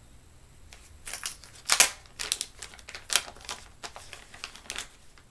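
Crinkling of a plastic anti-static bag as it is handled and opened to take out an Arduino Mega board: irregular crackly rustles starting about a second in, loudest near two seconds.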